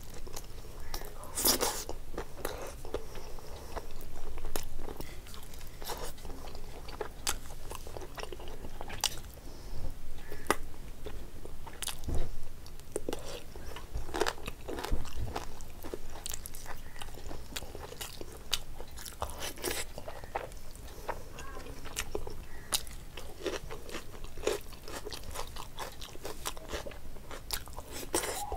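Close-up chewing of mouthfuls of rice and meat curry eaten by hand, with wet lip-smacks, mouth clicks and occasional crunches.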